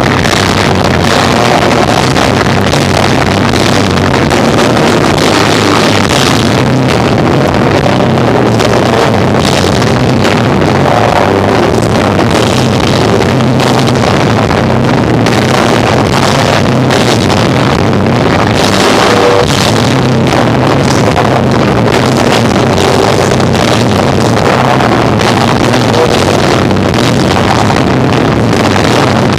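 Live rock band of electric guitar, bass and drums playing loud and without a break, heard through a heavily overloaded, distorted recording that blurs the instruments into a muddy roar.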